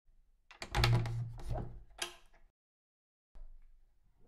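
Wooden door closing: a quick run of knocks and clicks over about two seconds, with a fainter rattle near the end.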